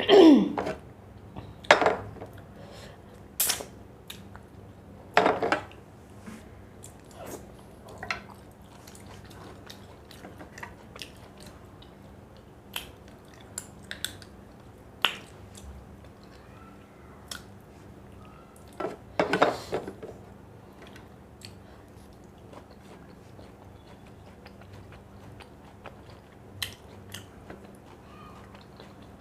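Close-miked eating: chewing and biting food, with scattered crisp crunches and small clicks, and a few louder bursts in the first several seconds and again about two-thirds of the way through.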